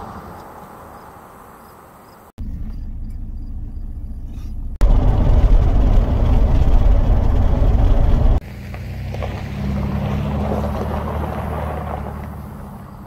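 Pickup truck sounds in three cut-together parts: a passing truck's road noise fading away, then a heavy low road rumble heard inside the moving cab, loudest in the middle, and from a little past halfway the truck's engine running steadily as it pulls away over gravel, fading near the end.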